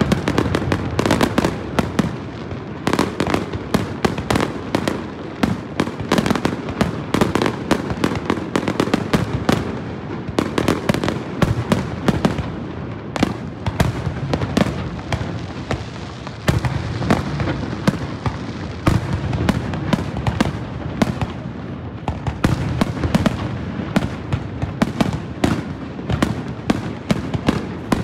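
Aerial fireworks shells bursting in a rapid, continuous barrage of bangs and crackles, several a second with no pause.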